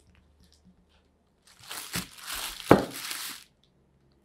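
Plastic cheese wrapping crinkling for about two seconds, with two knocks on the table, the second one loud.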